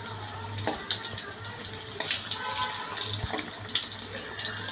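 Gram-flour batter bajji deep-frying in hot oil: a steady sizzle full of small crackles, with a few light clicks as a slotted spoon turns the fritters.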